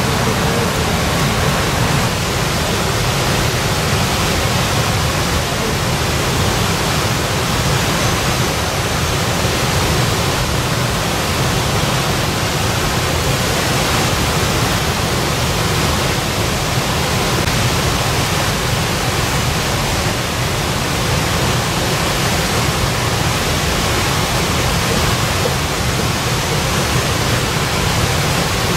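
Steady, even rushing noise that does not change, with no distinct events in it.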